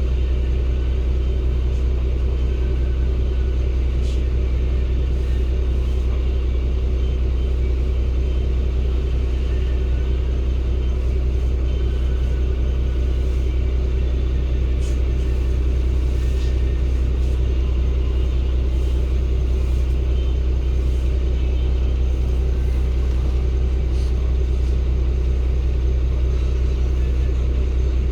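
Cummins ISB 280 PS diesel engine of a Daewoo NEW BS090 city bus running steadily with a deep, unchanging rumble, with the air conditioning off.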